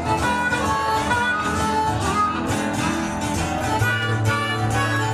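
Band music: a harmonica played into a microphone, holding bright sustained notes over strummed guitar.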